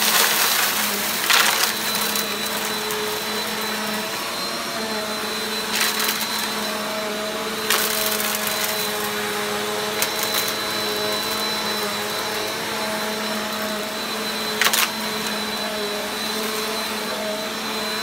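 Upright bagless vacuum cleaner running on carpet with a steady high-pitched whine, and a few sharp cracks as crunchy debris is sucked up through it.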